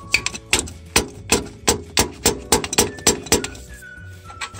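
A dozen or so sharp metallic knocks, coming slightly faster as they go and stopping about three and a half seconds in, with background music underneath.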